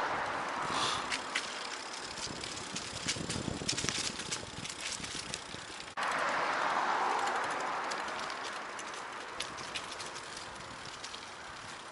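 Outdoor street noise: the even rushing of a vehicle passing and fading, then a second passing swell that starts suddenly about six seconds in, with scattered light clicks and ticks throughout.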